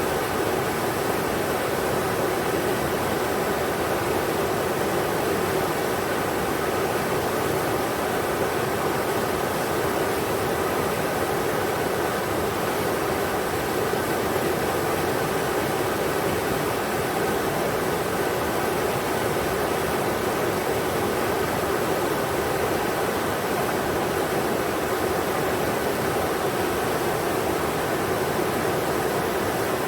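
River water rushing steadily over rocks, an even unbroken noise with no distinct splashes.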